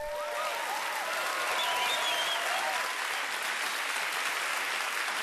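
Audience applauding and cheering, with scattered whoops over the steady clapping.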